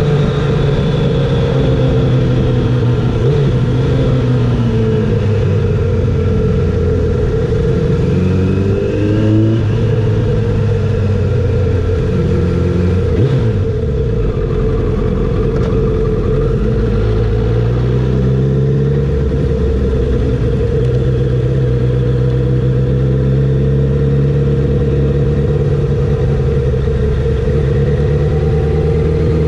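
Kawasaki ZX-7R's inline-four engine running at low revs, close to the bike, its pitch rising and falling a few times in the first half, then holding steady.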